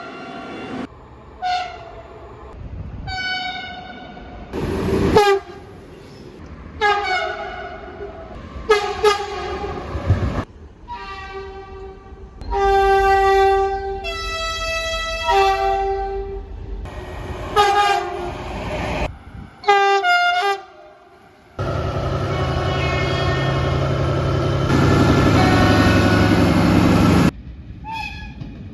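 A rapid run of short train horn blasts spliced from different recordings, one cutting straight into the next; some blasts change between two pitches. Near the end, about six seconds of a train running past with steady rolling noise, then more short horn blasts.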